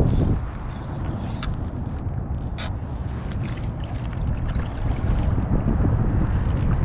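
Wind rumbling on the microphone of a kayak on open water, with a couple of sharp light clicks about a second and a half and two and a half seconds in.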